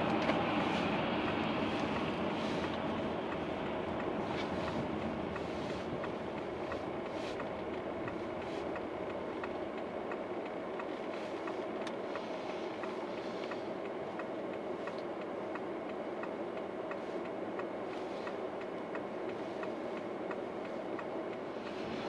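Steady road and tyre noise of a car driving along a city street, heard from inside the cabin.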